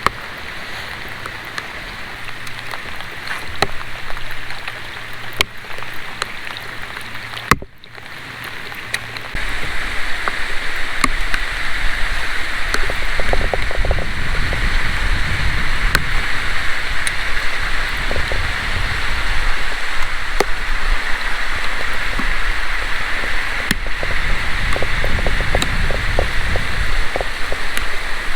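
Steady rush of water and wind noise on an action camera aboard a kayak, with scattered small ticks. About eight seconds in there is a cut, and after it the noise is louder, with a low rumble added.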